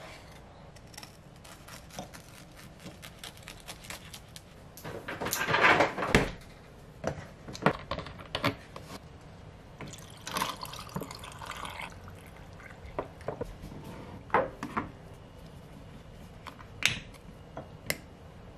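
Kitchen handling sounds: scattered light knocks and clinks of dishes and glass, with a loud burst of noise about five seconds in. About ten seconds in, liquid coffee pours from a carton over ice cubes in a tall glass for about two seconds.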